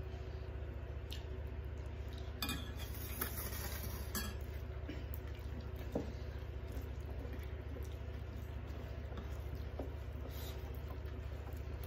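Hands mixing and scooping rice and curry on metal plates, with occasional clinks against the plates (the sharpest about six seconds in) and a brief rustle about two and a half seconds in, over a steady low hum.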